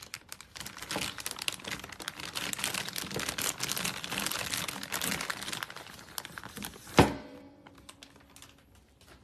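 Crinkling and rustling, dense with small crackles, then one loud thump about seven seconds in, followed by a few faint clicks.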